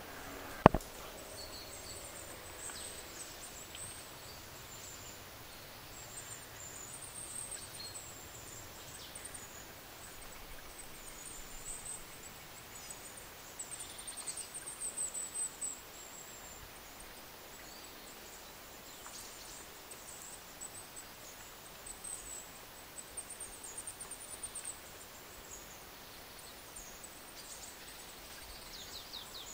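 Faint steady background hiss with faint high chirps coming and going, and one sharp click about a second in.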